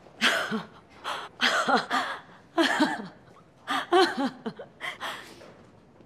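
A woman's tearful laughter and gasping breaths, in short broken bursts.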